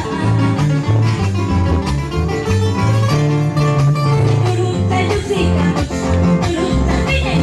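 Live band music: a bass guitar playing a steady line of deep notes under several strummed and picked acoustic guitars.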